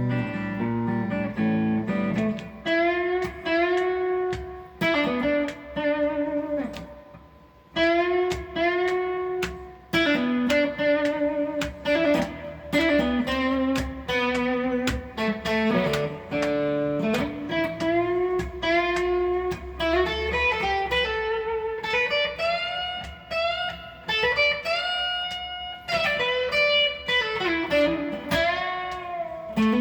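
Guitar playing a single-note lead melody, with many notes bent up in pitch and held with vibrato.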